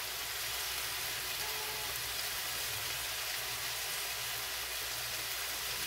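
Marinated beef strips searing in olive oil in a frying pan, sizzling steadily.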